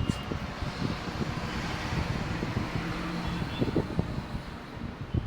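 Steady traffic-like noise that swells around the middle and fades again, like a vehicle passing, with many soft low thumps throughout.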